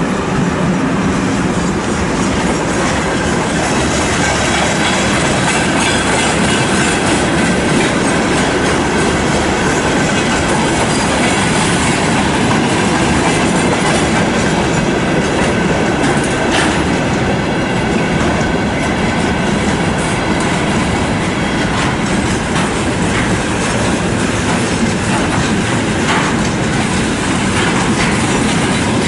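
Loaded freight train rolling steadily past at close range, led by a twin-section KZ8A electric locomotive, then a long string of tank cars and timber wagons. The wheels clatter over the rail joints, with a faint high whine running under the steady rumble.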